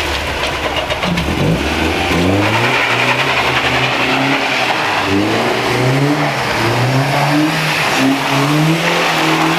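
Car engine revving up and down several times, its pitch climbing and dropping again and again, as the driver tries to get the car sliding into donuts on snow.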